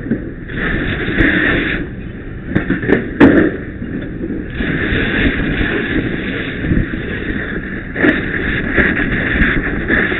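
Fireground noise at a working structure fire: a rushing hiss that starts and stops in stretches of one to several seconds, with a few sharp knocks about two and a half to three seconds in.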